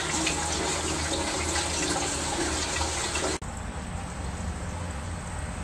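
Water rushing steadily into a 40-gallon solar water heater tank as it fills. About three and a half seconds in, the rush drops abruptly to a quieter level.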